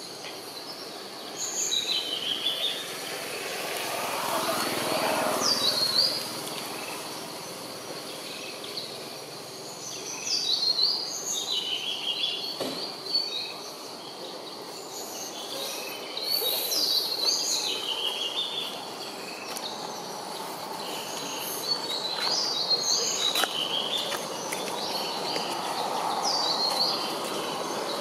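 Birds calling in short phrases of quick notes stepping down in pitch, repeated every few seconds, over a steady high-pitched hiss.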